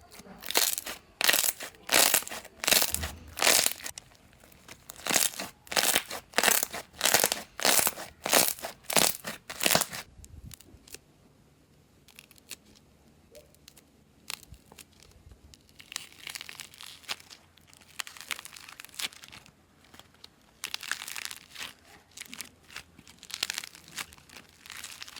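Slime being squeezed and pressed close to the microphone, making crackling squishes. For about the first ten seconds they come in a regular rhythm of about one and a half a second; after that they turn softer and irregular.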